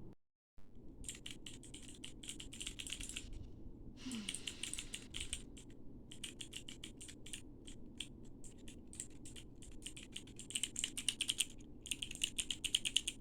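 Clicky fidget toy being clicked rapidly over and over: runs of sharp little clicks, many a second, in bursts broken by short pauses.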